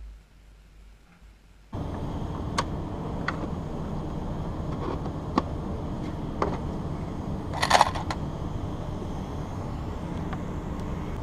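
Steady low rushing noise on a head-worn camera's microphone, starting suddenly about two seconds in, with scattered sharp clicks and a short clatter of plastic about two-thirds of the way through as a plastic tool case is handled and opened.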